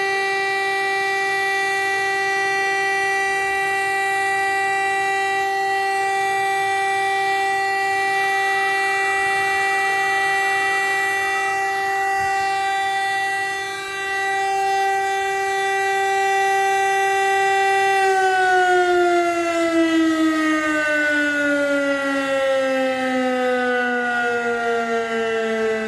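VEM DS977 siren sounding the Czech fire-alarm signal that calls out the fire brigade: a steady, loud tone, which about two-thirds of the way through begins to fall slowly and keeps sliding lower.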